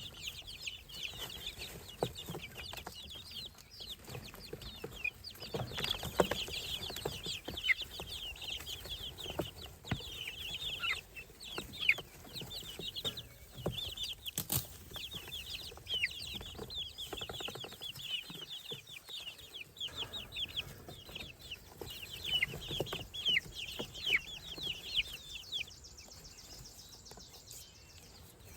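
Baby poultry (chicks, guinea keets and ducklings) peeping together: a dense, continuous chorus of short, high, falling cheeps that thins out near the end, with a few faint knocks.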